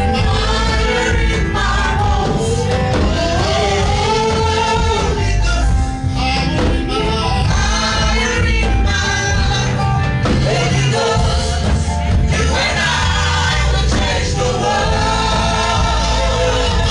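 Live gospel worship music: voices singing a flowing melody over a band with a strong, steady bass.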